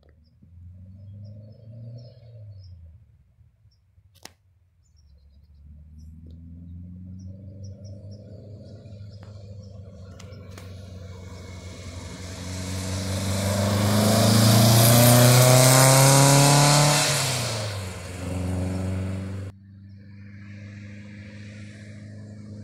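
Air-cooled Type 4 flat-four engine of a 1964 VW split-window bus driving past: the engine note grows steadily louder as the bus approaches, is loudest about two-thirds of the way through, and drops in pitch as it goes by. After a sudden cut the bus is heard again, fainter and further off.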